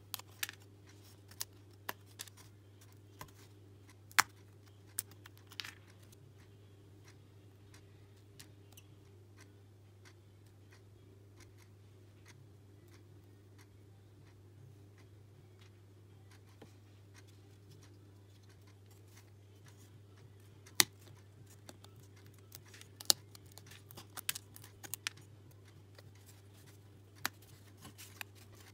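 Thin laser-cut plywood puzzle pieces clicking and tapping as they are handled, pressed out of their sheet and fitted together. The clicks come in scattered clusters in the first few seconds and again through the last third, over a faint steady low hum.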